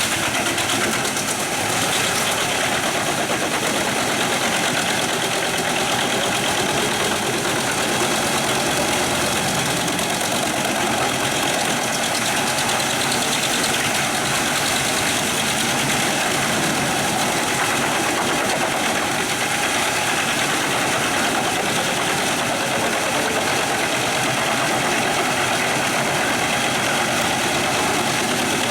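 Truck-mounted drum wood chipper running steadily, powered by the truck's 730 hp engine: a loud, continuous mechanical noise without pauses.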